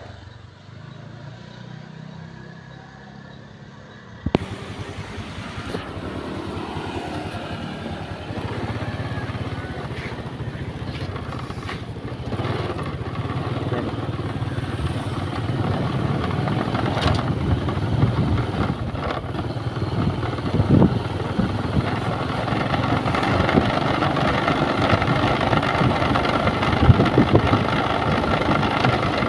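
Motorcycle running along a road, its engine rumble mixed with road and wind noise. A sharp click comes about four seconds in, after which the sound grows steadily louder.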